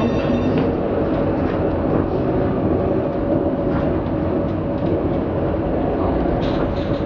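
Interior of a Translohr rubber-tyred tram running at a steady speed: a continuous rumble of the running gear with a steady humming tone.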